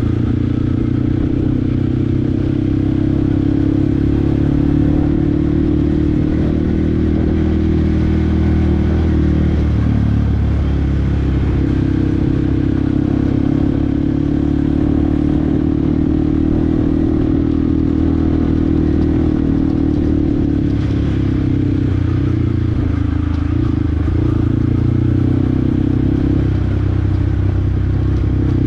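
Yamaha WR155R's single-cylinder four-stroke engine running while riding, at a steady pitch that dips briefly about ten seconds in and again near the end.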